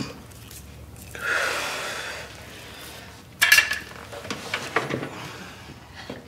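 A drawn-out hiss, then a sudden sharp clatter followed by a few light knocks.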